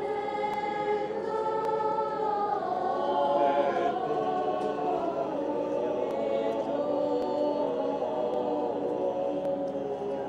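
A choir singing slow, sustained religious chant with long held notes.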